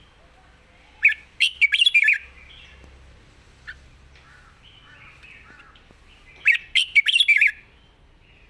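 Red-whiskered bulbul singing: two loud phrases of quick, sweeping notes, each lasting about a second and coming about five seconds apart, with faint chirps between.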